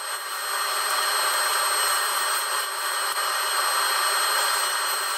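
Table saw running steadily while a wooden board is ripped into narrow strips along the fence.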